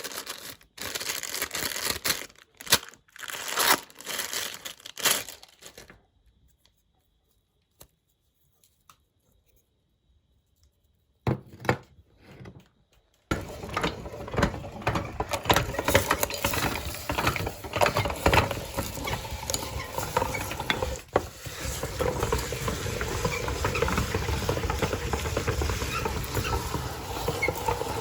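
Packaging crinkling and tearing in irregular bursts for the first few seconds, then several seconds of near silence. About halfway through, a meat grinder starts and runs continuously as it grinds ice cream, a steady churning noise over a faint hum.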